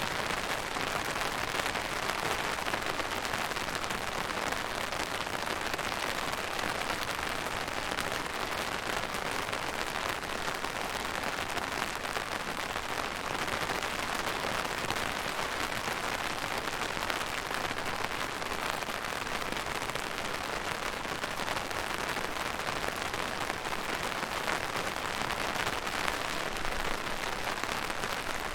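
Steady rain falling, a dense even hiss of many small drop patters that neither builds nor eases.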